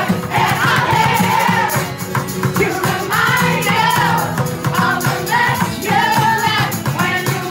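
A live acoustic performance: a woman and a man singing into microphones over acoustic guitar and a shaken tambourine, with the crowd singing along and clapping.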